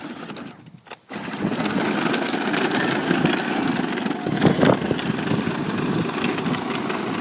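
Power Wheels Dune Racer ride-on toy moving off about a second in: its 12-volt electric drive motors and gearbox whirring and its plastic wheels rumbling over the ground, steady, with a brief louder moment about four and a half seconds in.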